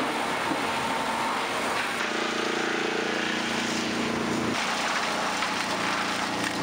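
Veneer mill machinery running: a waste conveyor carrying scraps of green veneer toward the chipper, a steady dense noise with a low hum under it. The hum changes abruptly about two seconds in and again past the middle as the sound cuts between machines.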